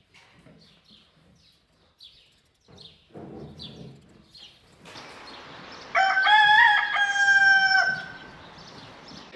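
A rooster crowing once, one long call of about two seconds past the middle.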